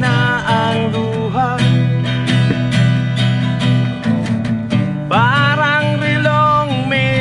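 Acoustic guitar strummed in a steady rhythm, with a man singing along: a sung phrase at the start and another from about five seconds in, the strummed chords carrying on between them.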